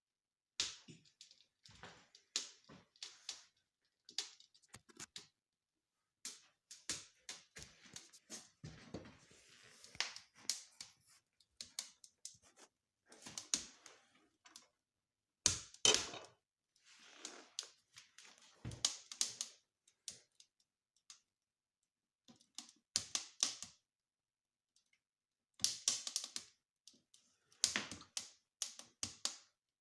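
Wood fire crackling in a fireplace stove: irregular sharp pops and snaps, some in quick clusters, with brief quiet gaps.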